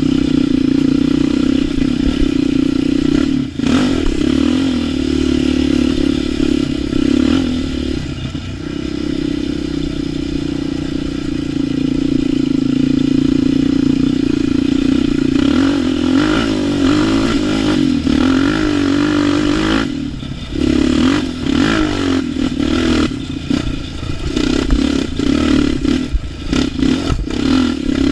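ATV engine running under throttle, its pitch wavering as the revs rise and fall, with the throttle let off briefly three times.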